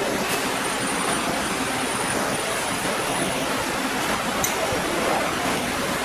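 Steady, even rushing noise of packaging machinery running in the workshop, with a faint high whine through the first half.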